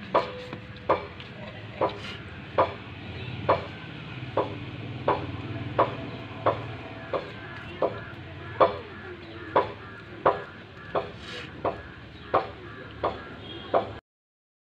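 Hand-plucking a chicken carcass on a plastic sheet: a sharp snap or slap with each stroke of the hand, about one every two-thirds of a second, in a steady rhythm. It cuts off suddenly about a second before the end.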